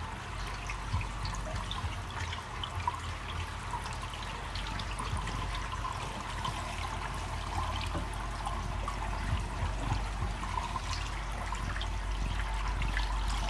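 Water from a hose splashing over the slatted aluminium bed of a CNC mill and trickling down into the basin below, over a steady low hum.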